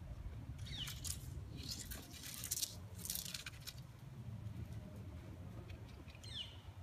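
Four crunching footsteps in loose arena sand, over a steady low wind rumble; a bird gives a short falling chirp near the start and again near the end.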